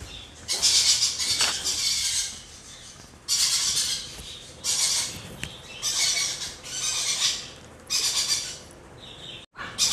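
Parrot chicks giving harsh, raspy begging squawks during hand-feeding, about seven calls of half a second to a second each, coming roughly once a second.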